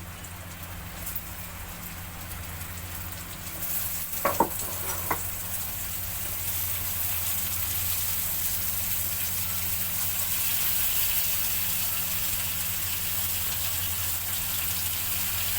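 Curry masala sizzling and frying in hot oil in a pan, the sizzle growing louder about four seconds in, with two sharp knocks soon after and a steady low hum underneath.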